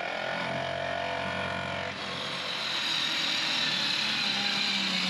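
Electric power saw running steadily under load, its tone shifting about two seconds in.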